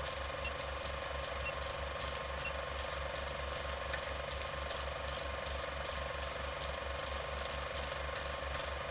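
Running film projector: a rapid, even mechanical clicking over a steady motor hum, with faint short beeps about once a second in the first few seconds.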